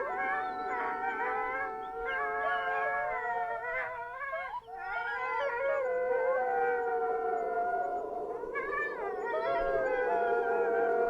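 Several drawn-out howls overlapping in a chorus, each wavering in pitch, with a short break about four and a half seconds in.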